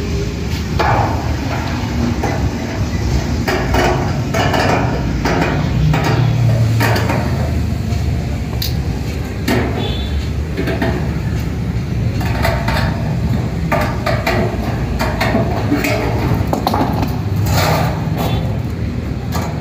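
Repeated metal clinks and knocks as steel feed-support rods and bolts are fitted onto a 4-foot satellite dish, over a steady low hum.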